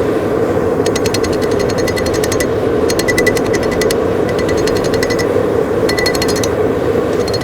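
Power hammer striking hot steel in short bursts of rapid blows, about ten a second, with a metallic ring, over a steady roar.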